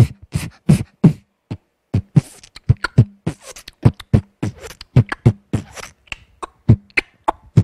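A young child beatboxing close into a handheld microphone: a fast, uneven string of mouth-made thumps, clicks and hissy snare sounds.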